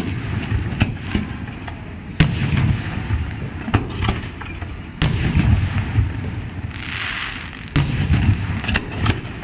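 Aerial firework shells bursting one after another: sharp bangs every second or so, three of them especially loud, each followed by a low rumbling echo. About seven seconds in there is a brief hiss.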